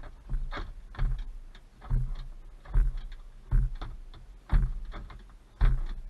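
Irregular knocks and clicks, roughly one a second and each with a low thud, from hands and a tool working at the seat-belt anchor at the base of a car's door pillar.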